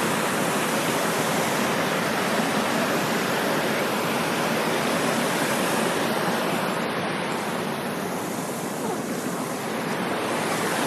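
A small stream's water pouring over a little waterfall: a steady rushing splash, dipping slightly in loudness a few seconds before the end.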